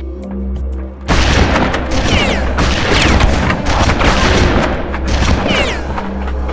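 Dense barrage of gunfire and explosion sound effects breaking in suddenly about a second in, rapid cracks with a couple of falling whistles, over background music.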